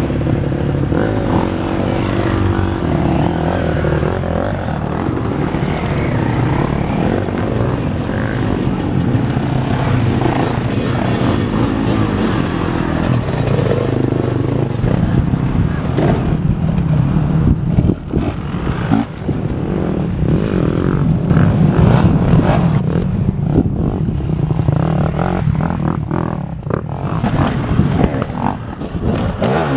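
Several enduro dirt bike engines running at a start line, revving up and down as riders pull away, the engine pitch rising and falling over a steady idle.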